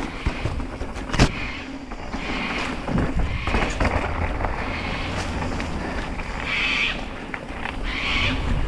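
Mountain bike ridden along a dirt trail: a steady low rumble with scattered rattles and clicks, short bouts of hiss, and one sharp knock about a second in.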